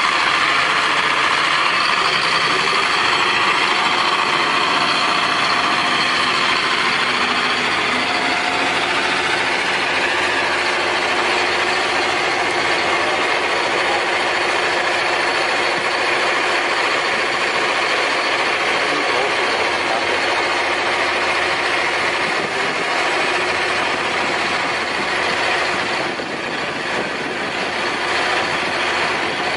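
Diesel engine of a Caterpillar rubber-tracked tractor running steadily as it pushes snow with a large front plow blade.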